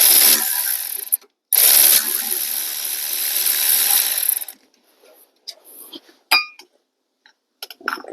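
Power ratchet with a 14 mm socket spinning out the brake caliper bolts, in a short run of about a second and then a longer run of about three seconds. A few clicks and knocks of metal parts being handled follow.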